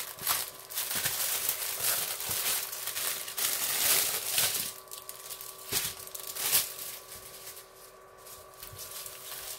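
Small clear plastic bags of diamond-painting resin drills crinkling and rustling as they are handled and separated, busiest for about the first five seconds, with two sharp clicks a little later and quieter rustling near the end.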